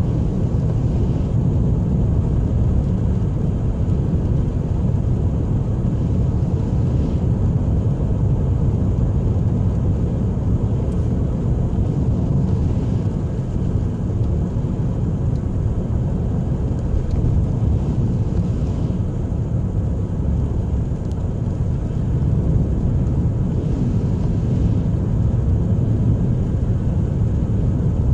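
Car driving at steady speed on a highway, heard from inside the cabin: a steady low rumble of tyre and road noise.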